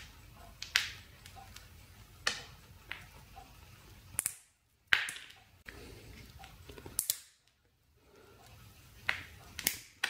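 Pliers cracking and biting off pieces of a black plastic component case packed with potting compound. About ten sharp snaps and cracks come at irregular intervals of a second or so.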